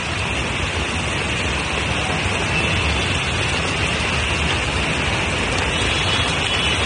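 Heavy monsoon rain pouring down on a waterlogged street with traffic, a steady dense hiss.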